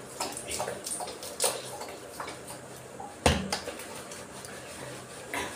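Handling and squeezing a plastic shampoo bottle while lathering a wet dog's fur, with scattered small clicks and knocks; about three seconds in, one sharp knock as the bottle is set down on the floor.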